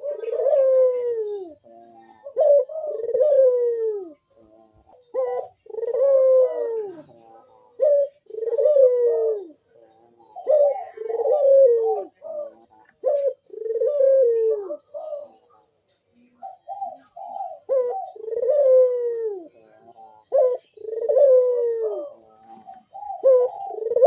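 Barbary dove (burung puter) giving its repeated 'manggung' coo: a short note, then a long falling coo, repeated about every two and a half seconds.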